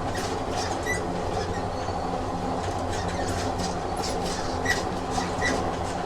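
Train running on rails: a steady rumble of the carriage with irregular clicks from the wheels. There are brief high squeaks about a second in and twice near the end.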